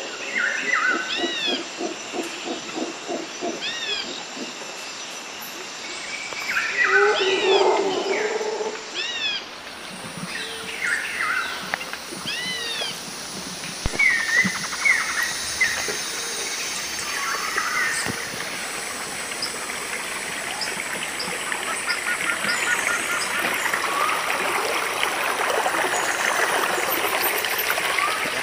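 Birds calling repeatedly with short, arched chirps, with a louder, lower sound about seven seconds in and a steady hiss building near the end.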